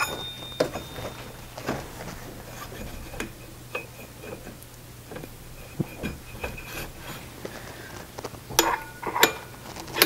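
Steel parts clinking, tapping and scraping as a chain sprocket and its hub are worked along a steel jackshaft. Now and then a faint metallic ring, and a couple of sharper clinks near the end.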